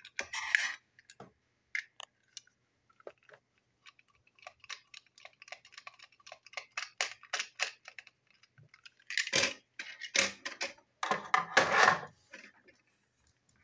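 Small clicks and taps of a plastic toy train truck being handled and worked with a small screwdriver, followed by three louder bursts of clattering handling about nine, ten and eleven seconds in.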